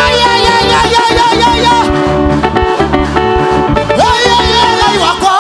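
Loud upbeat praise dance music with a steady bass line and a singing voice carrying a wavering melody.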